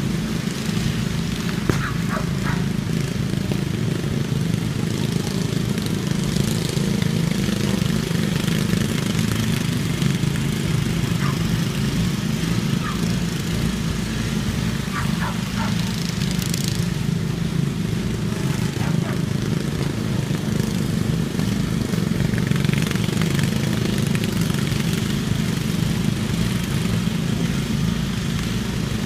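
Lawn mower engines running in a steady, continuous drone during a circle race.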